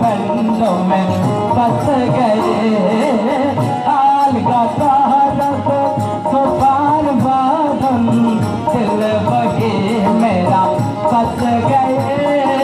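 A boy singing a song into a microphone, with keyboard and hand-drum accompaniment.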